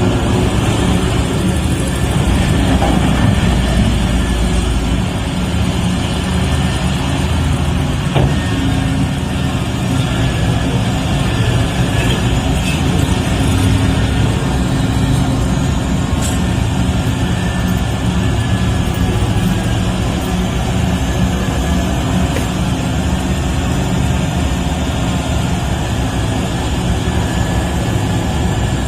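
A vehicle engine running steadily, a continuous low rumble with no clear revving or stops.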